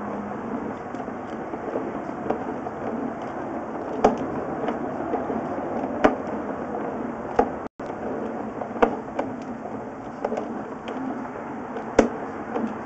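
Sewer inspection camera's push cable being pulled back out through the drain line: a steady rough noise with a few sharp knocks every second or two. The sound cuts out for an instant about halfway.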